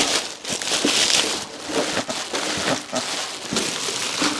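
Packaging being handled as an exhaust part is unwrapped: irregular crinkling and rustling with a few short knocks.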